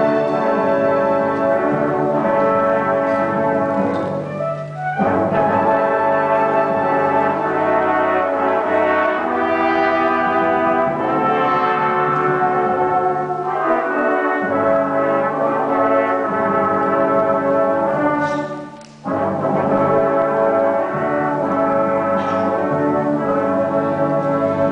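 A youth symphony orchestra playing a classical piece, with the brass section prominent over the strings. It moves in long held chords, with two short breaks, about five and nineteen seconds in.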